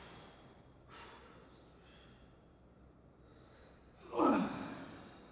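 A person's loud breathy vocal exhale, like a gasp or sigh, about four seconds in, falling sharply in pitch.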